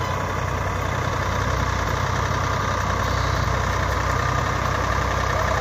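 Diesel engines of a Swaraj 744 FE and a Mahindra 265 DI tractor idling steadily.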